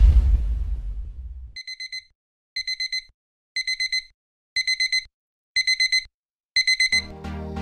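Alarm clock beeping: quick groups of about four high beeps, one group a second, six times. A low rumbling boom fades out during the first second and a half, and music with a deep bass comes in near the end.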